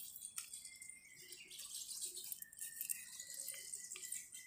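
Knife blade paring the rind off a raw jackfruit: a few faint soft cuts over a steady high hiss.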